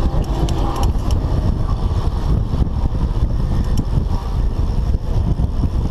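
Wind buffeting a GoPro's microphone while riding a bicycle, a loud, uneven low rumble, with occasional light clicks and rattles.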